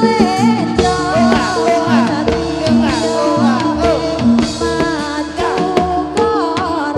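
Live music of the kind that accompanies jathilan dance: drum strikes and pitched percussion notes alternating in a steady repeating pattern, with a sliding melody line over them.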